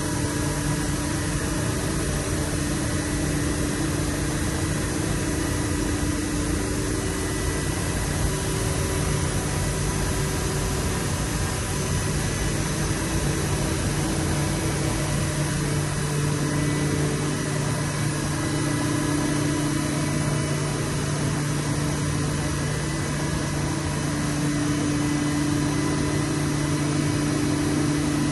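Mori Seiki NTX 1000 multitasking CNC lathe running: a steady mechanical hum with two held tones, the higher of which fades and comes back several times.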